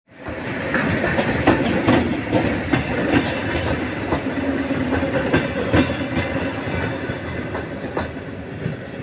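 ED9M electric multiple unit moving off and passing close by, wheels clicking over the rail joints under a steady rumble. The sound eases off slowly over the last few seconds.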